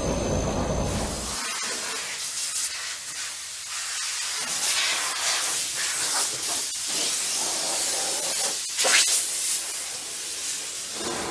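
Compressed-air blasting inside a blast cabinet: a loud, steady hiss from the blast nozzle, swelling now and then, with a sharper surge near the end. It is preceded for about the first second and a half by a low machine rumble.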